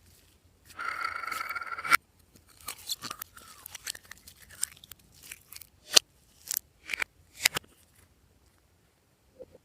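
Glossy slime being handled: a squeaky rasp for about a second near the start, then a run of irregular sticky pops and crackles as the slime is pressed and pulled, ending about two seconds before the end.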